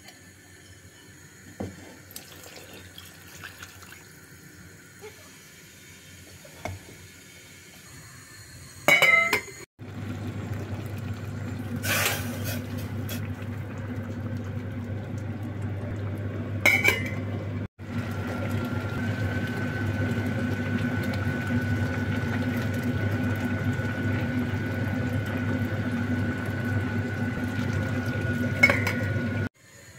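Water poured into a cooking pot over an upside-down plate, a steady pouring rush that lasts many seconds. Before it come light clinks of a spoon in a bowl and one loud knock. After a brief break, a steady hiss and hum with a thin high tone continues.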